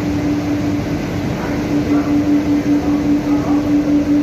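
Loud, steady industrial hum from an induction furnace and its bag-filter dust collector, with one strong humming tone that starts to pulse about a second in.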